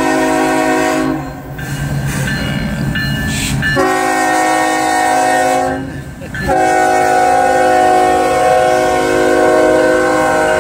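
Diesel freight locomotive's air horn blowing a series of blasts with short breaks between them, the last held about four seconds. The train's low rumble runs underneath.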